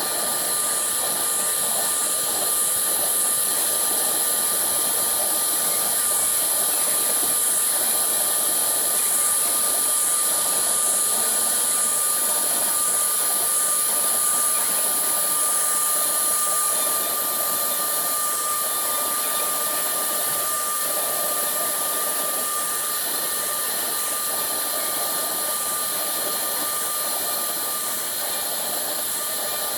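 Single-head CNC router's spindle running with a steady high-pitched whine, its bit engraving MDF. About halfway through, the highest part of the whine drops away and the sound gets slightly quieter.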